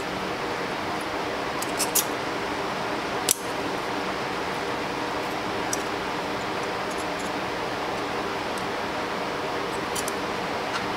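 Light metallic clicks and taps of small folding-knife parts and screws being handled during reassembly, a few scattered strikes with the sharpest about a third of the way in, over a steady background hiss.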